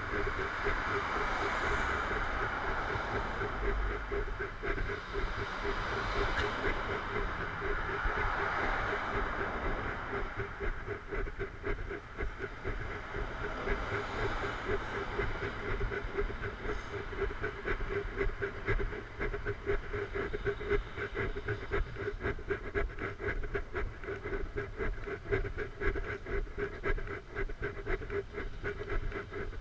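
Steady rushing road and wind noise from a moving ride, with a constant hum and fast, even rattling throughout. Passing vehicles swell and fade about a second in, around seven seconds and around fourteen seconds.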